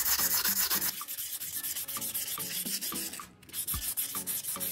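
Sandpaper rubbed by hand around the inside of a scooter's metal clutch bell, quick repeated scratchy strokes with a brief pause about three seconds in. This roughens the smooth friction surface so that the clutch shoes grip better.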